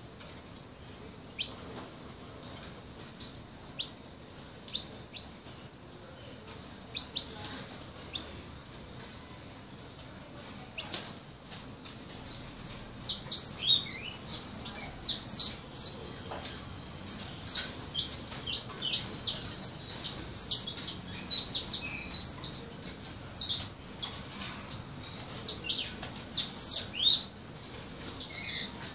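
Young songbird practising its song: a few scattered high chirps at first, then about twelve seconds in a rapid, continuous, high-pitched run of chirps and trills that is still rough and unpolished.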